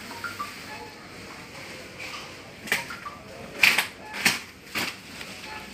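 Faint background noise, then four sharp clicks in the second half, about half a second apart.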